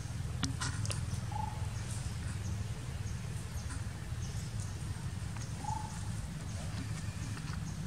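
Outdoor ambience: a steady low rumble with a few faint clicks near the start and two short, faint chirps, one about a second and a half in and one about two-thirds of the way through.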